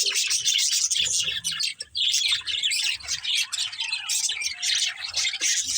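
Budgerigars chirping and chattering, a dense run of rapid, overlapping high chirps without a break.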